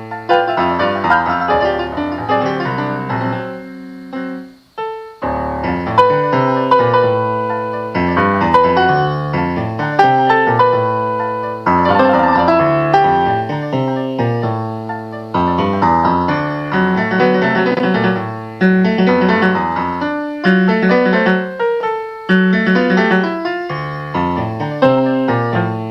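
Solo piano playing an instrumental piece, chords under a melody line, with notes struck and left to ring. It thins to a near pause about four to five seconds in, then comes back in with a fresh chord and keeps a steady pulse of struck chords.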